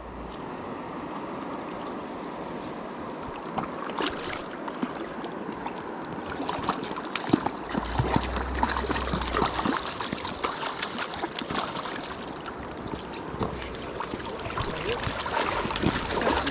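Shallow river riffle running over gravel: a steady rush of water close to the microphone, with scattered small clicks and knocks through it. Near the end come wading footsteps crunching on the river cobbles.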